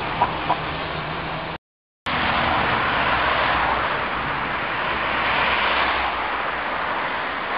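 Street traffic: cars driving past, with the rush swelling as a car passes about three seconds in and again about five seconds in. The sound cuts out completely for half a second near the start.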